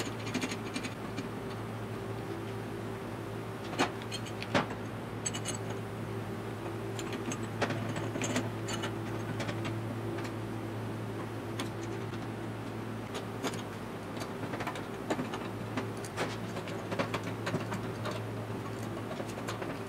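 Scattered metal clinks and knocks as a homemade threaded-rod spring compressor is worked on a Triumph GT6 front coil spring and damper, over a steady low hum.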